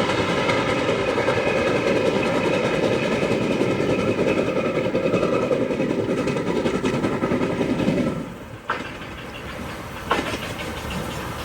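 Train running with a steady rumble and several held tones over it. The sound drops away sharply about eight seconds in, and two sharp knocks follow.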